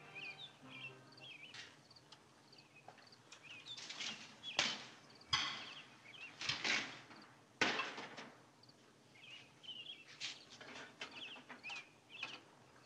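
Kitchen clatter: several sharp knocks of cookware being handled at a gas stove, with small birds chirping faintly.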